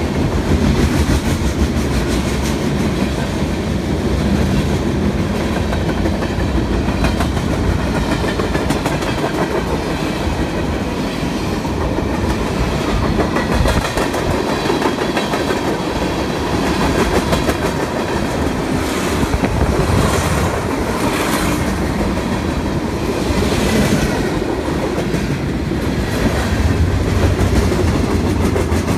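A CSX mixed freight train's cars rolling past close by: a steady, loud rumble with the clickety-clack of wheels over rail joints.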